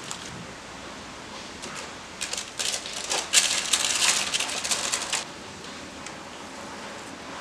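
Baking paper lining a glass loaf pan crinkling and rustling as it is handled and folded around the rim, with a louder burst of crackling for about three seconds in the middle.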